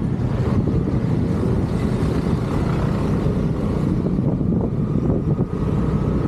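Motor scooter riding along a road: a steady low mix of engine and road noise with wind on the microphone.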